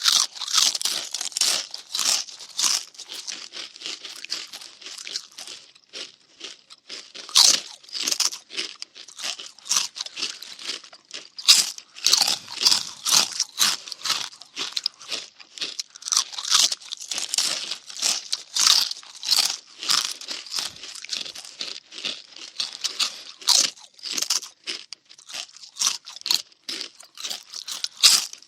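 Cartoon munching sound effect: rapid, irregular crunchy bites and chewing, several crunches a second.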